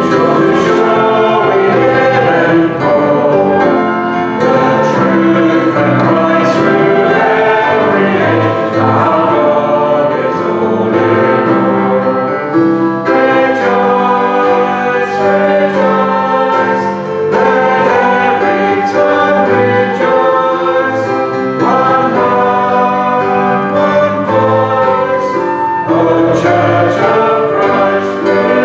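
Group of voices singing a Christian worship song together, with musical accompaniment, at a steady full level.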